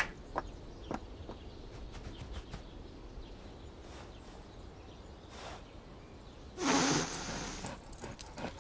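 A large dog barks once, loudly, about seven seconds in, over quiet outdoor background; a few light clicks come near the start.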